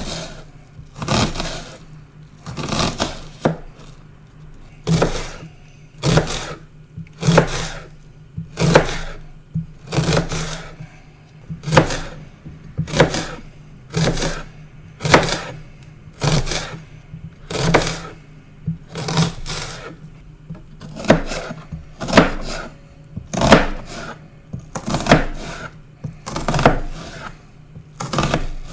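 Kitchen knife chopping an onion on a cutting board: sharp, separate chops at a slow, uneven pace of about one a second, some coming in quick pairs.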